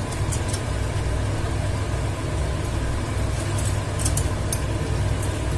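A steady low hum, like a motor or fan, runs throughout, with a few light clicks from a hand-held metal lemon squeezer being worked and set down, most of them a little past the middle.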